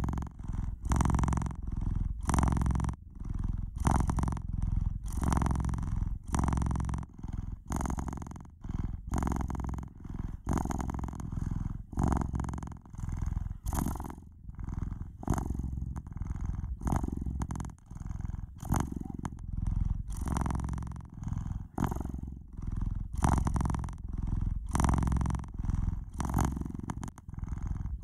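Domestic cat purring steadily, a low rough rumble that swells and fades roughly once a second with its breathing.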